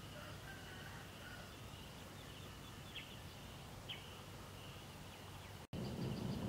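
Countryside ambience in long grass: a steady high insect drone with two short chirps about three and four seconds in. Near the end the sound cuts out for an instant and comes back louder, with a rapid pulsing chirp and a low rumble.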